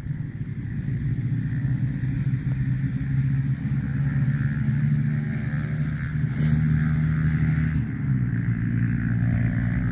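An engine running steadily, its pitch stepping slightly about six and again about eight seconds in.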